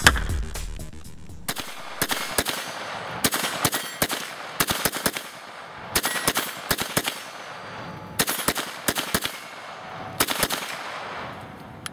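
KelTec PMR-30 pistol in .22 Magnum (.22 WMR rimfire) being fired in about six quick strings of several shots each, with short pauses between strings.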